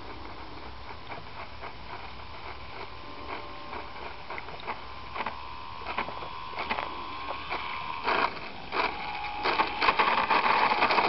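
Small RC model airplane's motor whining, faint at first and growing steadily louder. The pitch drops slightly about eight seconds in as it throttles back. Near the end it turns into a loud buzzing rattle as the plane rolls up close on the runway.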